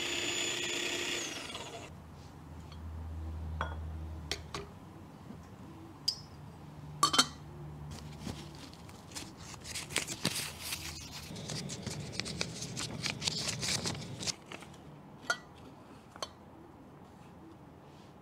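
Electric coffee grinder motor running with a steady whine, winding down and stopping about a second in. Then scattered clicks and knocks of handling, and from about 10 s a dense stretch of crackly paper rustling as a paper coffee filter is folded and set into a pour-over dripper.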